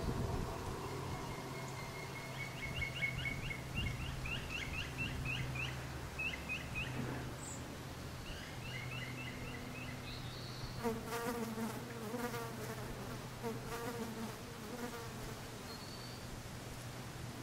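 Insects buzzing steadily, with runs of short, high, repeated chirps and, in the second half, a repeated lower call about twice a second.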